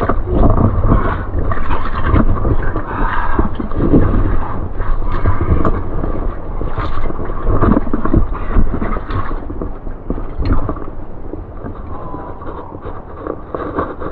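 A caver crawling through a low, wet cave passage over cobbles and shallow water: continuous scraping, splashing and clothing rub with irregular knocks, loud and rough on a body-worn camera's microphone.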